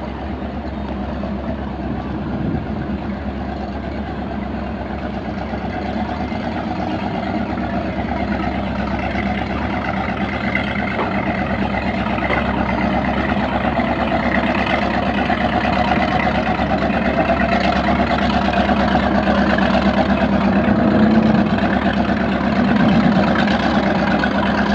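Motorboat engines running steadily on a river, a dense continuous din that grows gradually louder.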